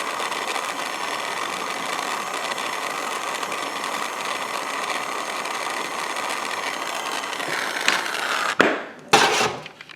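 Soldering torch flame burning with a steady, even hiss while heating a solder join. Near the end the sound shifts, then breaks into two short loud bursts and drops away.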